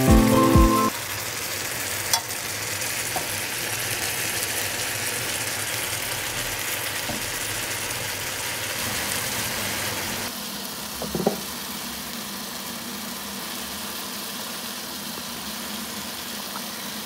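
Pan of beef and chopped leafy greens (muriwo) sizzling steadily on a hot stovetop. About ten seconds in, after liquid is poured in from a jug, the sizzle drops to a quieter simmer.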